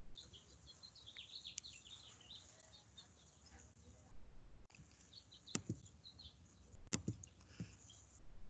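Quiet room tone with a few soft, sharp knocks, the loudest two about a second and a half apart past the middle, and faint high chirping in the background.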